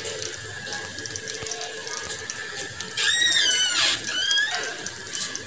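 Cumin seeds frying in hot oil in a kadhai: a steady sizzle with scattered small crackles. About three seconds in, a loud high-pitched squeal with bending pitch cuts in for about a second, followed by a shorter one.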